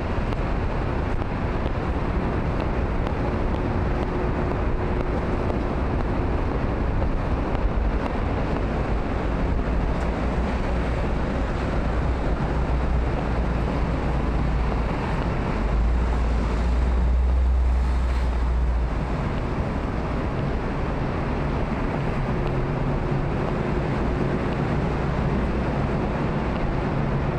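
Busy city street: steady traffic noise from a multi-lane road, with wind buffeting the microphone. A deeper rumble swells for a few seconds past the middle.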